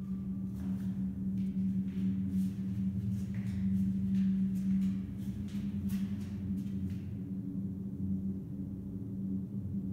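A steady low-pitched hum, with a series of light clicks and taps over the first seven seconds.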